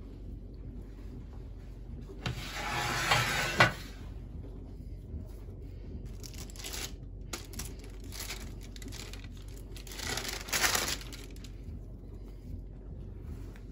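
Parchment baking paper on a tray crinkling in two bursts of about a second each, the first ending in a sharp click.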